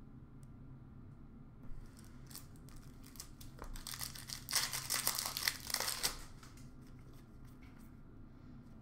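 A pack of hockey trading cards being torn open by hand, its wrapper crinkling. A few light crackles come about two seconds in, building to a dense run of tearing and crinkling from about four to six seconds in.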